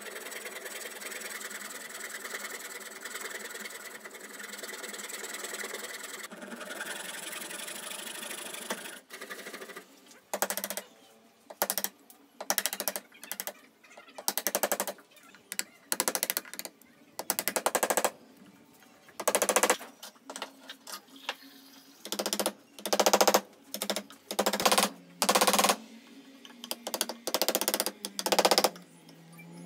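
Small frame saw cutting into the end grain of a wooden block, a steady rasp for about nine seconds. It is followed by a string of short, irregular, louder rattling bursts.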